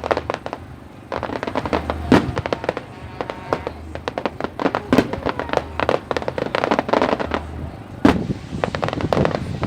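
Fireworks display going off in quick succession: a dense run of sharp bangs and crackles, with the loudest bangs about two seconds in and again near the end.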